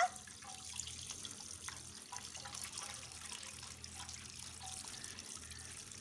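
Water spraying from a garden hose into a wire birdcage: a faint, steady hiss.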